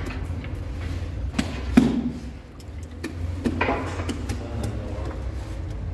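Bakery work noise: a steady low hum under scattered knocks and clicks, with one sharp thump a little under two seconds in.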